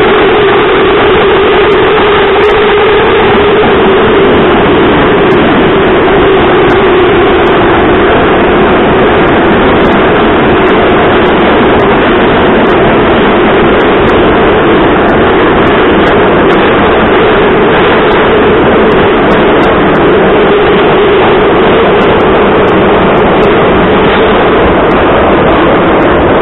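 Inside a Moscow metro 81-714.5 car running at speed through a tunnel: a loud, steady roar of wheels on rails and running gear, with a steady hum beneath it that drifts slightly in pitch.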